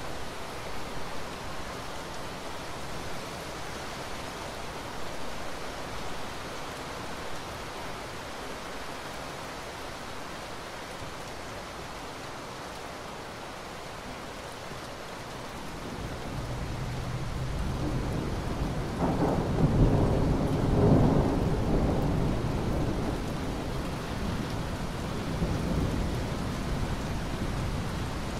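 Steady rain, with a long roll of thunder building about halfway through, loudest a few seconds later, then slowly dying away.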